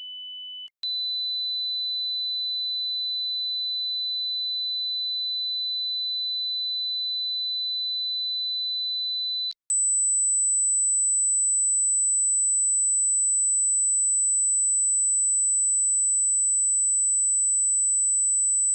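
Pure sine test tones from a hearing test: a high steady tone for about nine seconds, then, after a brief break, a higher and louder one, the test's top pitch of 8,000 Hz. A lower tone cuts off just under a second in.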